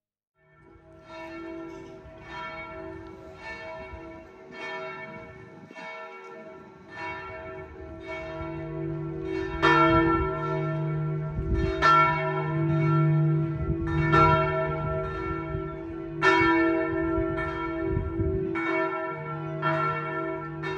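Church bells ringing from a bell tower, struck about once a second with each stroke ringing on. The peal grows fuller and louder about ten seconds in.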